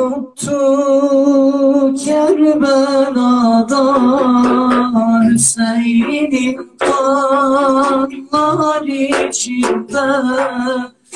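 A young man singing a Turkish ilahi, a Karbala lament for Hüseyin, unaccompanied, in long held notes with a wavering, ornamented line and short breaks for breath.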